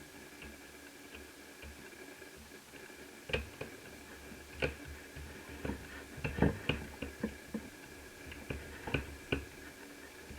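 Irregular light clicks and taps of small laptop parts and tools being handled, thickest in the middle stretch, over a faint steady high whine.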